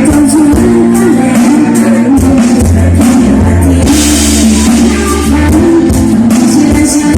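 Loud band music with a woman singing a melody over drum kit and bass.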